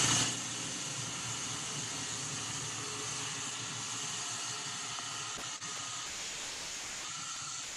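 High-pressure groundwater jetting in through a leaking segment joint in a segmentally lined tunnel, a steady hiss. The water is forced in under about 40 metres of water head.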